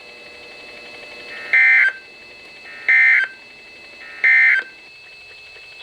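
Emergency Alert System end-of-message data bursts on a weather radio: three short, identical screeches of modem-like two-tone warbling, about a second and a half apart, marking the end of the warning. Steady radio hiss fills the gaps between bursts.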